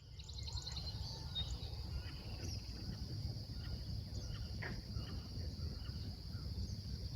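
Outdoor nature ambience: scattered short bird chirps and a quick trill over a continuous high-pitched buzz, with a low wind rumble underneath.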